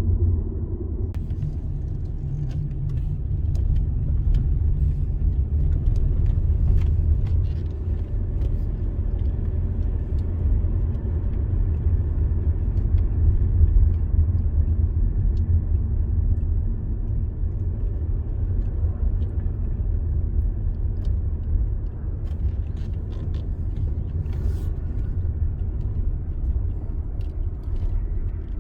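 A car driving along: a steady low rumble of engine and tyres on the road, with scattered faint clicks.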